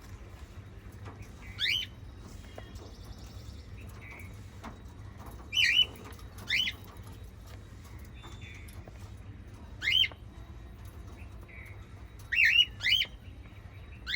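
Small pet parrots giving short, loud, rising chirps every few seconds, some in quick pairs, over a steady low hum.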